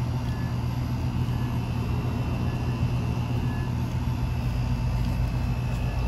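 2015 Lennox R-410A central air conditioner's outdoor condensing unit running, a steady low hum. The system has been running for about five minutes and its readings have settled.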